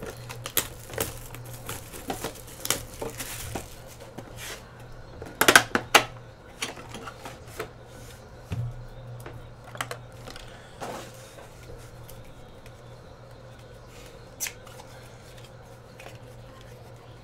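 Plastic shrink-wrap and cardboard of a trading card hobby box being torn open and handled: crackling and tearing through the first few seconds, a few sharp snaps around five to six seconds in, then scattered light taps and rustles as the small inner cardboard box is opened. A low steady hum runs underneath.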